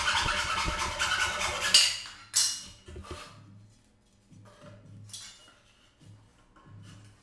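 Hand hacksaw cutting through a wooden door-casing strip in quick back-and-forth strokes, stopping a little under two seconds in as the cut finishes. Then two sharp clatters as the saw and the cut-off piece are set down on the tiled floor, followed by quieter knocks of the wooden pieces being handled.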